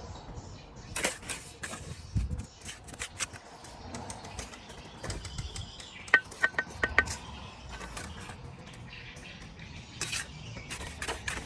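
A bricklayer's steel trowel clinking and tapping on bricks and mortar: scattered knocks and scrapes, with a quick run of four ringing metallic taps about six seconds in.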